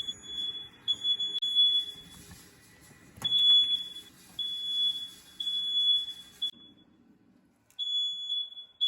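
A high-pitched electronic alarm beeping in long, uneven tones with short gaps between them, over a low background rumble that drops out near the end.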